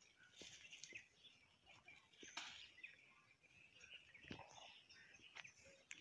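Near silence with faint, scattered rustles and crinkles: a thin plastic bag and coriander plants being handled as green seed heads are picked and dropped into the bag.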